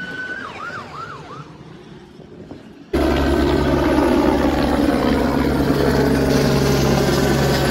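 Police car siren giving a short steady tone, then three quick falling chirps in the first second and a half. About three seconds in, a louder steady rumbling noise with a low hum starts abruptly and carries on.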